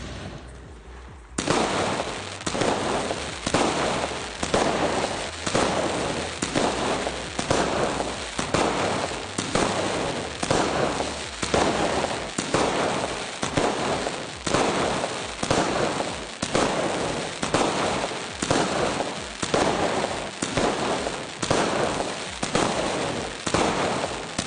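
A 25-shot fireworks cake firing its shells one after another, starting just over a second in and going on at about one shot a second. Each shell bursts in the sky with a crackling sound.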